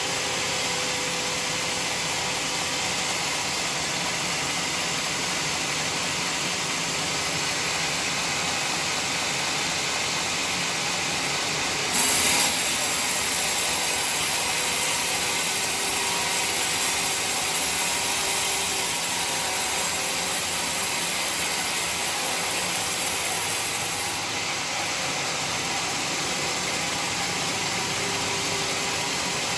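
Band sawmill running with a steady mechanical noise. About twelve seconds in, a brighter, hissier sound begins with a brief jump in loudness and carries on for about twelve seconds before dropping away.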